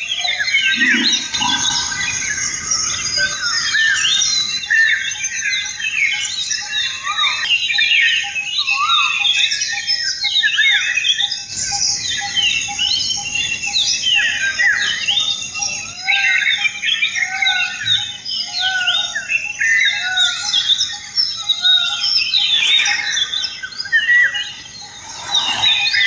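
Dense chorus of many small birds chirping and calling over one another throughout, with one short note repeated steadily at a single pitch for several seconds in the middle.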